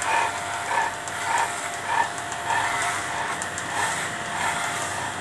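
Corded electric dog clippers running with a steady hum as they shave through a St. Bernard's coat. A soft pulse repeats a little under twice a second over the hum.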